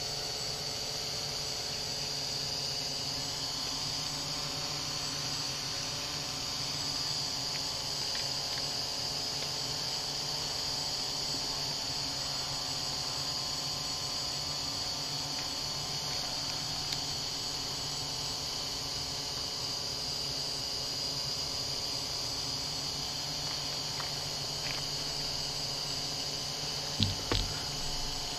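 Steady outdoor ambience of a high, continuous insect chorus with a faint low hum under it. A few sharp knocks come about a second before the end.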